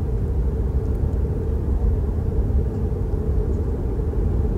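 Steady road and tyre rumble inside an electric Tesla's cabin while it drives at highway speed.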